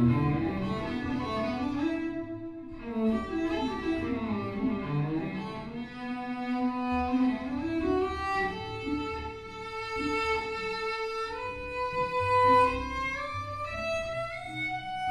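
Bowed cello playing a slow melody. A higher line climbs in steps over held lower notes.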